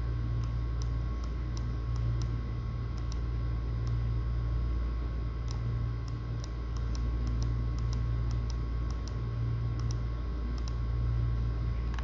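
Faint, irregular light clicks, about one or two a second, over a steady low electrical hum.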